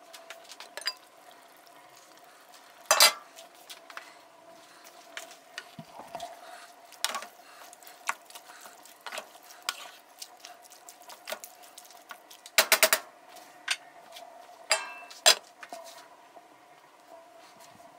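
A spatula stirring and scraping vegetables in a cooking pot, with scattered clinks and knocks against the pot, the loudest about three seconds in and a quick cluster around thirteen seconds. A faint steady hum runs underneath.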